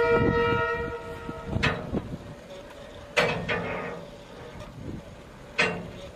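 A locomotive horn sounds a steady held chord that stops about a second and a half in, followed by three sharp knocks with a ringing tail, spaced a second or two apart.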